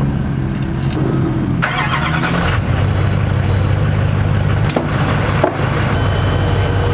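Duramax LLY 6.6-litre turbodiesel V8 cranking and catching about a second and a half in, then settling into a steady idle over another engine already idling. A couple of sharp clicks follow.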